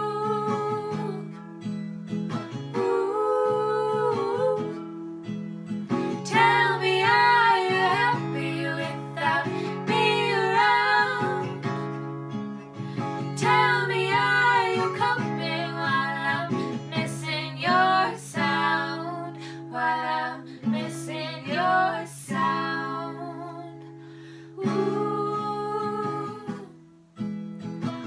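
A female voice singing a song over an acoustic guitar, in phrases with short pauses between them.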